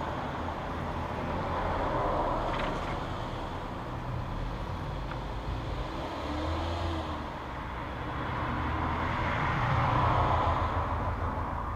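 Motor vehicle noise from outside, a rushing sound with a low rumble that swells and fades about two seconds in and swells again near the end, like vehicles passing by.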